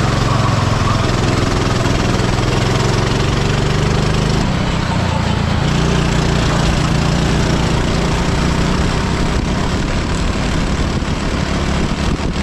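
Kart engine running hard on the track, heard from on board over a constant noisy rush. Its engine note changes abruptly about four seconds in, then shifts in pitch with the throttle.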